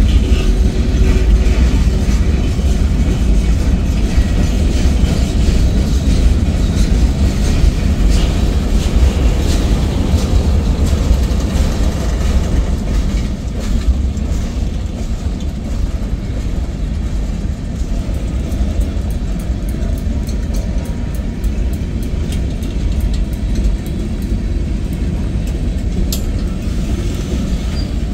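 Freight cars of a manifest train rolling past: a steady low rumble of steel wheels on the rails, with faint clicking over the joints.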